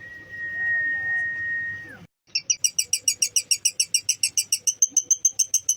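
A long steady whistle for about two seconds, then after a short break a lovebird's rapid chattering trill (the 'ngekek' call): sharp, high, evenly repeated notes at about six a second.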